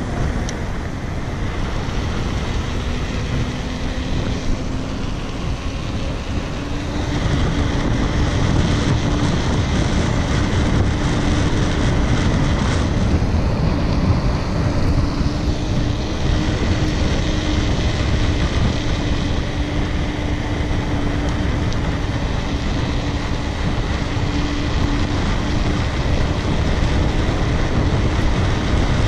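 Wind rushing over the microphone and tyres rolling on asphalt as a mountain bike coasts fast downhill. The noise grows louder about seven seconds in as speed builds, and a steady low hum runs through it.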